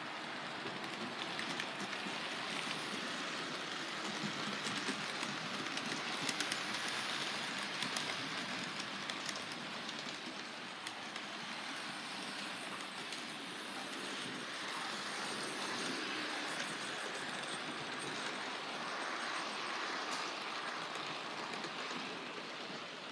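Model trains running on the layout's track: a steady rumbling hiss of motors and wheels on rail, with faint scattered clicks.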